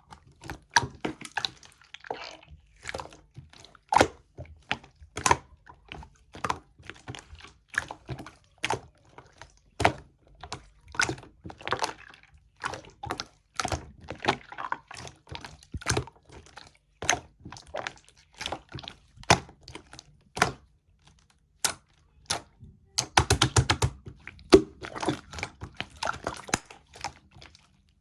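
Milky slime being pressed and squished by hand, giving irregular sticky clicks and pops, with a quick run of crackles about three quarters of the way through.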